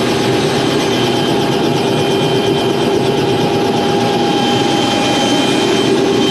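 Robinson R66 helicopter's turbine engine and rotor running steadily on the ground, a whine of held tones over a fast, even rotor rhythm.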